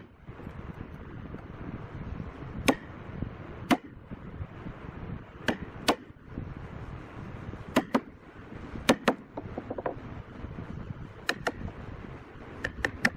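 Hand chisel being struck to cut a notch into a wooden moulding strip: about a dozen sharp taps, often in quick pairs, a second or two apart.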